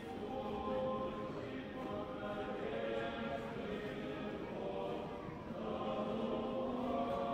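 Several voices singing an Orthodox church chant together, holding long notes that change every second or so.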